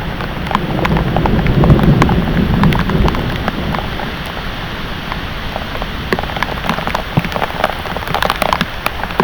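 Heavy thunderstorm rain falling steadily, with sharp splats of drops striking close by. A low rumble of thunder swells in the first second and fades away by about three and a half seconds in.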